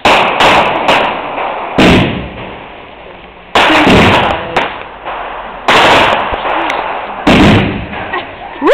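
Fireworks going off: about seven loud bangs at irregular intervals, each trailing off in a fading echo.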